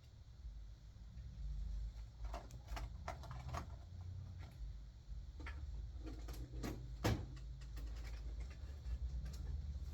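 Scattered clicks and knocks of hands handling equipment, with one sharper knock about seven seconds in, over a low steady rumble.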